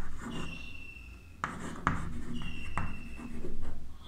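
Chalk writing on a chalkboard: the chalk drags with two high-pitched squeaks and a few sharp taps as letters are formed.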